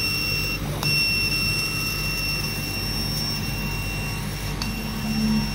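Laser cutting machine at work: a steady low hum from its fume-extraction fan motor with a high-pitched whine over it. The whine cuts off briefly under a second in and again after about four and a half seconds, then returns.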